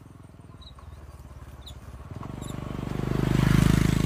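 A motorcycle passing on the road, its engine growing louder as it approaches, loudest about three and a half seconds in, then starting to fade. A few faint bird chirps sound early on.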